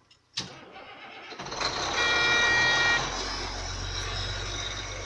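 Caterpillar 966H wheel loader's C11 six-cylinder diesel engine started with the key. A click, about a second of cranking, then the engine catches and settles into a steady idle. A high steady tone sounds over it for about a second as it catches.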